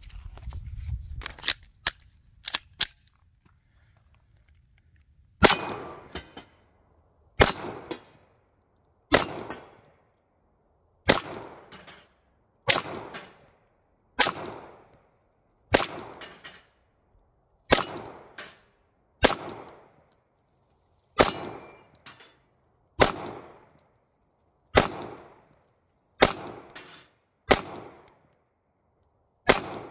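Glock 17 9mm pistol firing about fifteen single shots, one every one and a half to two seconds, the last few coming a little faster, each shot trailing off in echo. Several shots are followed by the ring of a steel pin target being hit.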